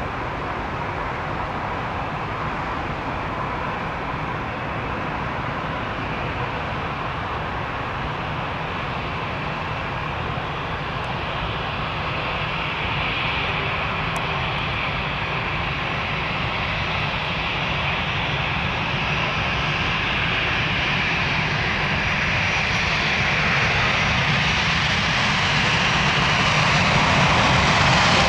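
Boeing 787-9 Dreamliner's jet engines, a steady rushing drone that grows gradually louder throughout as the airliner approaches.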